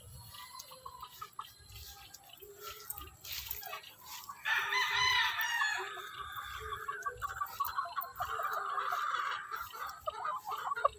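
Gamecock roosters crowing: a loud crow starts about four and a half seconds in, and more crowing follows soon after.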